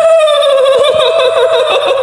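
High-pitched female ghost laugh of the kuntilanak kind: a long held shrill note that breaks into a rapid trembling cackle about half a second in.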